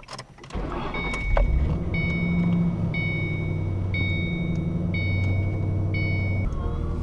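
2007 Mustang GT's 4.6-litre V8 coming to life about half a second in and idling steadily. Over it, a dashboard warning chime beeps six times, about once a second, then stops.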